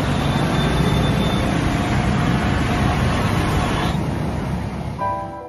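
Steady loud road-traffic noise that fades away about four seconds in. Soft piano music begins near the end.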